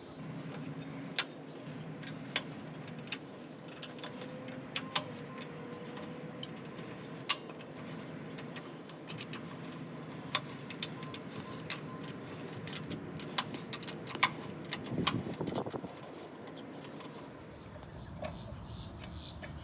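Truck jack being cranked up under the truck with its handle: irregular metallic clicks and clinks, spaced out over the whole stretch.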